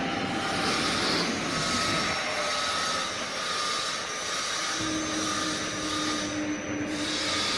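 Automatic chapati and naan making machine running: a steady mechanical hum and hiss from its motors and heated rotating baking plate, with short bursts of higher hiss about a second in and near the end.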